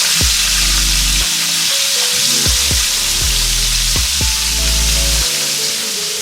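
Chicken ribs deep-frying in hot oil: a loud, steady sizzle. Background music with low bass notes and a regular beat plays underneath.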